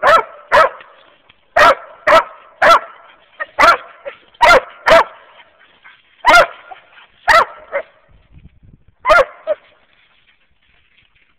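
Squirrel-hunting dog barking treed: about a dozen loud, sharp barks in irregular runs, some in quick pairs, stopping a little before the end.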